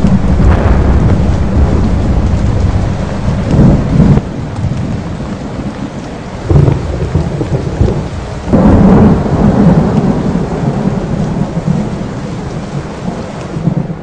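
Thunderstorm: a continuous low rolling thunder over rain, with three louder peals, the longest a little past the middle, then the rumble dies down toward the end.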